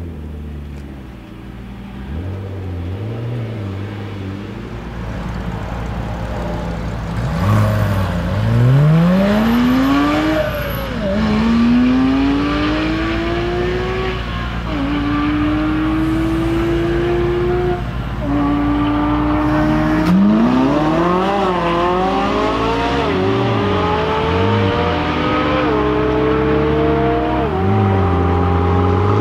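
McLaren 12C's twin-turbo V8 with sport exhaust: a few light throttle blips, then hard full-throttle acceleration, the pitch climbing and dropping at each upshift. Later come more quick revs up and down, and another steep climb in revs near the end.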